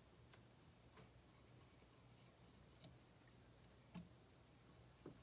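Near silence: faint room tone with a few soft, sparse clicks, the clearest about four seconds in.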